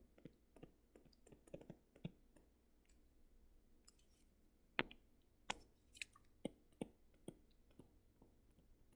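Faint clicks and taps of a stylus on a tablet screen during handwriting, the sharpest taps coming in a cluster from about five to seven and a half seconds in.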